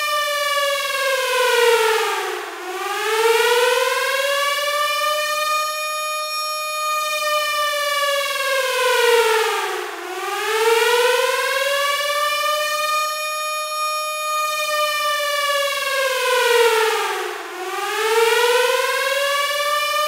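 Air-raid siren wailing: a high tone that slides down and climbs back up about every seven and a half seconds, three times.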